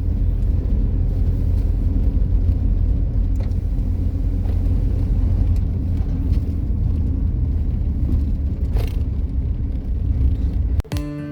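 Steady low rumble of a vehicle on the move, with road and wind noise. Music cuts in abruptly near the end.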